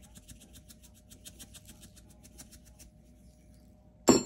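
Salt being poured and shaken from its container into a glass dish of water: a fast, even patter of grains, about eight or nine ticks a second, that stops after about three seconds. Just after four seconds, a single sharp, ringing clink on the glass dish.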